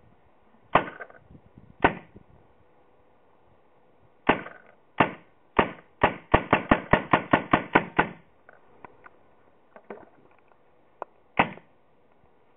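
Paintball marker fed from a box magazine, test-fired: a few single shots, then a rapid string of about ten shots in two seconds. A few faint clicks and one more shot follow near the end.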